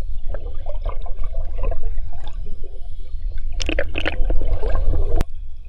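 Sea water splashing and gurgling around an action camera at the surface of the ocean, over a steady low rumble of water against the microphone, with a louder flurry of splashes near the end and a sharp click.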